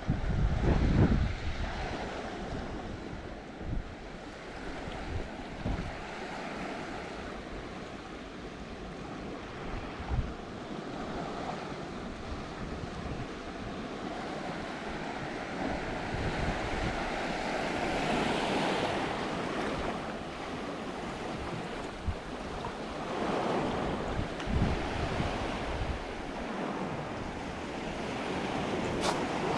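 High-tide sea waves washing against the seafront, swelling louder about two-thirds of the way through and again near the end, with wind buffeting the microphone.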